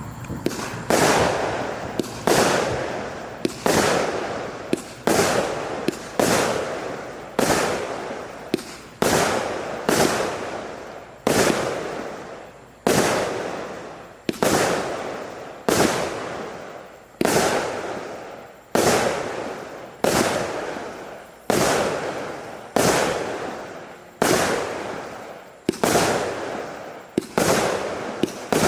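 A 36-shot, 0.8-inch consumer firework cake firing shot after shot at a steady pace, a little faster than one a second. Each shot is a sharp report that trails off before the next.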